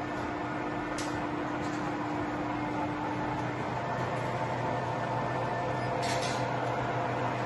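Colchester Student 1800 lathe running with no cut, its chuck spinning under the 3 hp motor, giving a steady hum and whine from the headstock gearing. A couple of faint clicks come through about a second in and near the end.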